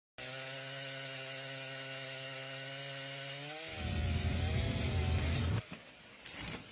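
Two-stroke chainsaw running at a steady high pitch, then dropping in pitch and getting louder and rougher as it bites into a big fallen tree trunk under load. It cuts off suddenly near the end, followed by quieter noise and a couple of sharp cracks.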